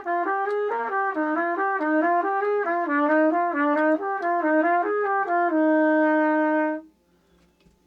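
Trumpet playing a phrase of quick short notes that ends on a held note of about a second, which stops sharply near the end. It is played with the chest and shoulders collapsed forward, a posture the player says makes the tone thin, tight and restricted.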